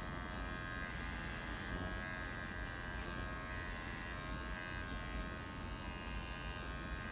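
Cordless dog grooming clippers running with a steady buzz as they shave a standard poodle's face and throat.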